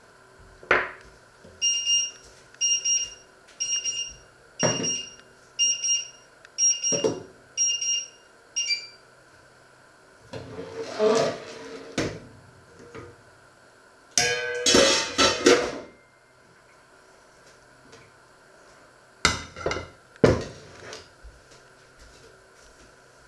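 An electronic beeper sounds eight short, high beeps about once a second, then stops. Around and after it come knocks and clatter of kitchen utensils and pots on a wooden board.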